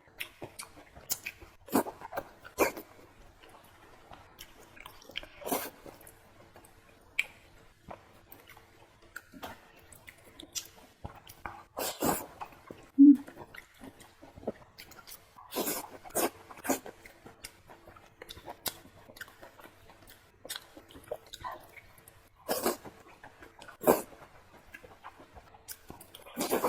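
Close-miked eating sounds: fatty pork belly and stewed pickled cabbage being chewed, with irregular wet smacks and clicks of the mouth. A brief low-pitched sound about halfway through is the loudest moment.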